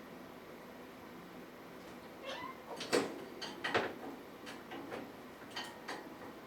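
Kitten giving a short mew a little over two seconds in, followed by a few sharp taps and rustles over the next three seconds, the loudest about three seconds in.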